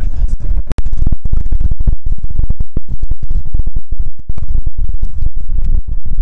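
Loud, continuous low rumbling noise with crackling and brief dropouts, one deep dropout a little under a second in.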